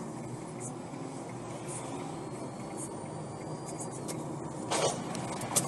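Steady road and engine noise of a car driving, picked up by a dashcam inside the cabin. Near the end comes a sudden burst of noise and then a sharp knock, as a collision happens on the road ahead.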